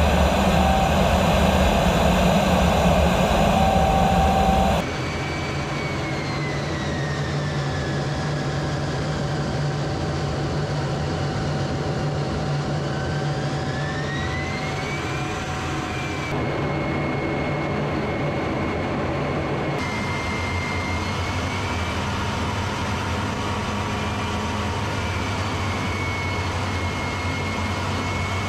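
AV-8B Harrier jet engine heard inside the cockpit in flight: a steady engine rumble with a high turbine whine over it. It is louder for the first five seconds, then drops abruptly. Through the middle the whine dips in pitch and rises again.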